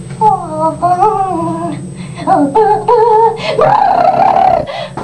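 A young woman's wordless, high-pitched vocal noises: a string of short sliding squeals and sung, wavering tones, with a rougher, raspier stretch about three and a half seconds in.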